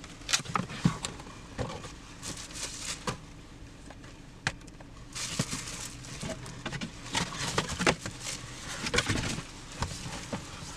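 Plastic packaging crinkling and cardboard box rustling while being handled, with scattered light clicks and knocks of packed parts being moved.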